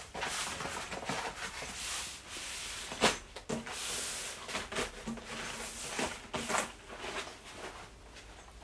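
Coltac Cordura shooting mat rustling as it is folded up and lifted off a steel table, with a few sharp knocks and clicks among the rustling.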